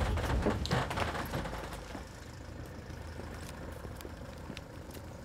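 A vehicle engine running with a low, steady rumble that dies down over the first two seconds, leaving a low hum with a few faint clicks.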